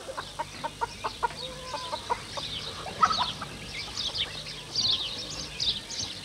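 Chickens clucking, with a dense chatter of small birds' quick, high chirps over them and a louder call about three seconds in.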